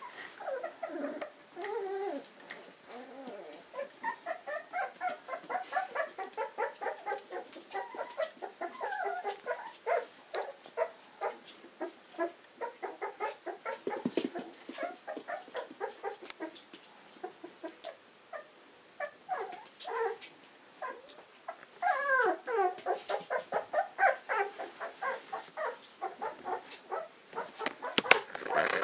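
Beagle puppy whimpering in rapid strings of short, high cries, several a second. The cries ease off about halfway through and come back louder near the end.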